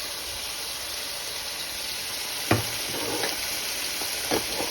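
Ground beef sizzling steadily as it browns in a frying pan, with two sharp knocks, one about halfway through and one near the end.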